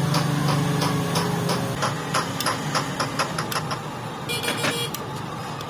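Steel ring spanner working a nut on a steel thread insert in an engine casing: a quick run of light metal clicks, about four a second, over a low steady hum, with a short whirr about four seconds in.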